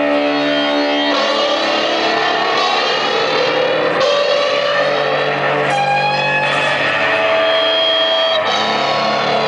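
Hollow-body electric guitar with a Bigsby vibrato arm, amplified and played in long held notes that slide and bend in pitch, ringing and droning together.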